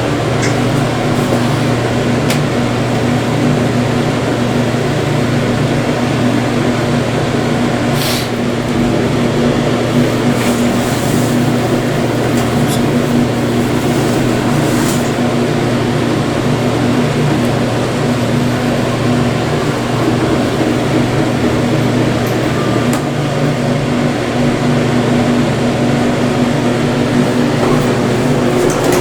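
Subway train running steadily, heard from inside the car: a constant low hum with ventilation noise and a few faint clicks.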